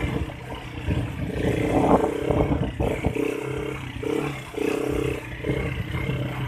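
ATV engine running and revving up and down while riding over a dirt track, heard from on board the machine. It has a constant low rumble and engine pitch that rises and drops several times.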